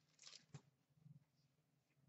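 Near silence, with a few faint, short rustles in the first half second from a foil trading-card pack wrapper and cards being handled.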